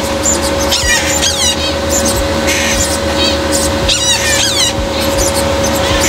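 Parrot chicks giving repeated short, high squeaky chirps in scattered clusters, over a steady machine hum from the brooder room.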